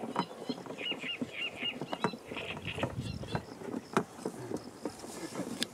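Close rustling and handling noise with scattered clicks and a few sharper knocks, and a bird chirping a quick series of short repeated calls about a second in.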